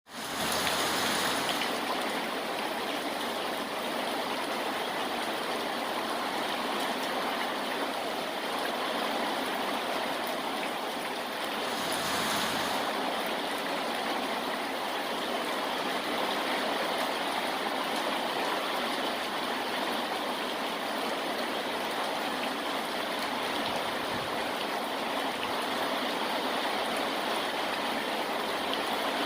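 Steady falling rain, an even hiss that holds at much the same level throughout, swelling slightly about twelve seconds in.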